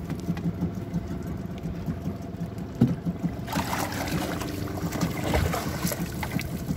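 A hooked mackerel thrashing and splashing at the surface beside a small boat on a handline, the splashing starting about halfway through with sharp slaps of water. Under it is a steady low rumble.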